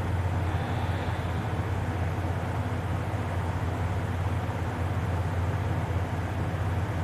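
A steady low hum with an even hiss, unchanging in level throughout.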